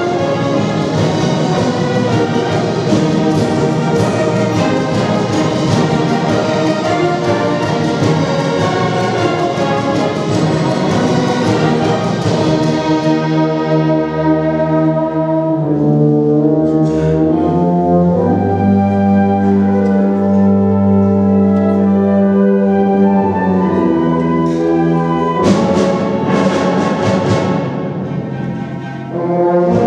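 Wind band of saxophones, clarinets, trumpets, trombones and tubas with drum kit playing a piece live. The full band plays with drums at first; a little before halfway it thins to held chords over a low bass line, and the full band with percussion comes back near the end.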